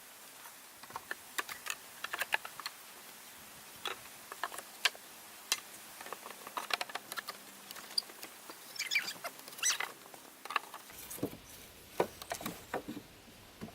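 Scattered light clicks and taps at an uneven pace, a few with a short ringing edge.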